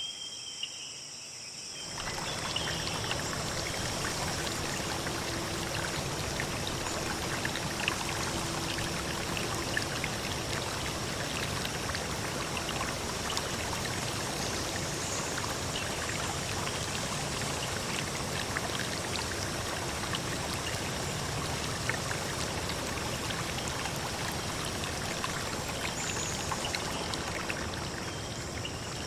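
Running water of a forest stream, cutting in suddenly about two seconds in and then steady; a faint high insect trill carries on beneath it.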